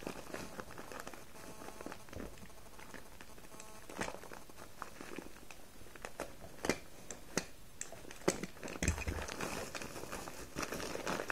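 Clear plastic packaging around a bag of jasmine tea crinkling and rustling as hands turn and handle it, with scattered sharp crackles and clicks.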